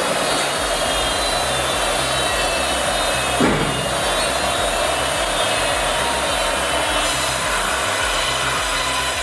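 Steady running noise of wood-processing machinery mixed with background music, with one short knock about three and a half seconds in.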